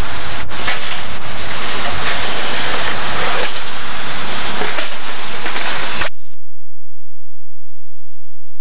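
Loud rushing noise on the camcorder's microphone, like wind or handling noise. It cuts off abruptly about six seconds in when the recording ends, leaving only a faint low hum from the blank tape.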